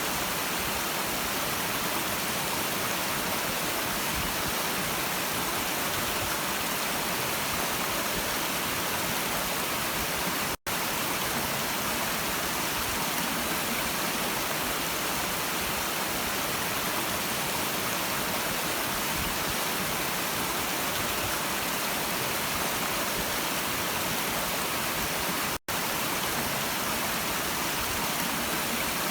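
A stream of running water making a steady, even rushing sound. It cuts out to silence for an instant twice, about ten seconds in and again near the end.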